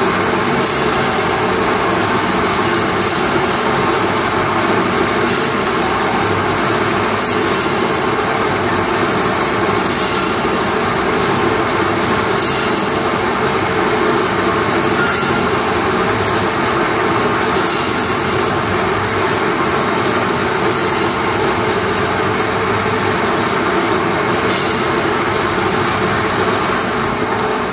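Butcher's meat bandsaw running steadily while cutting a lamb forequarter through meat and bone into chops.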